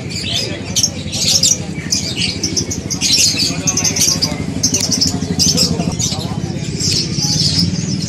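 Many caged birds chirping and squawking at once: short, sharp high calls that overlap all through, over a steady low background hubbub.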